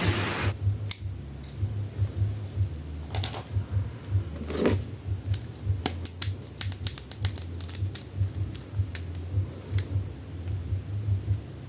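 Light plastic clicks and taps from handling a toy action figure and its packaging, with a quick run of clicks about six seconds in, over a low pulsing hum.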